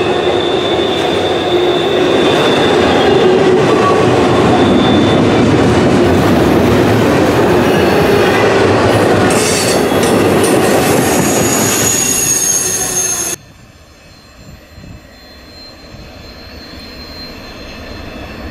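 Double-stack intermodal freight train passing close by: a steady rumble and rattle of container cars on the rails, with thin, high wheel squeal coming and going. About thirteen seconds in, the sound drops suddenly to a much quieter rumble.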